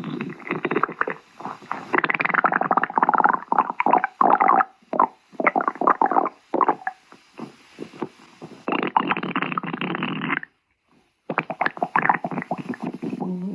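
Stomach growling: gurgling and rumbling in irregular bursts, breaking off for under a second about eleven seconds in.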